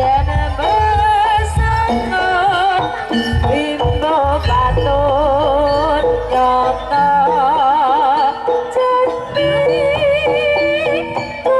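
Jaranan music from East Java: a wavering, vibrato-laden melody line over drums and gongs. The drumming drops back for a couple of seconds in the middle, then comes back in.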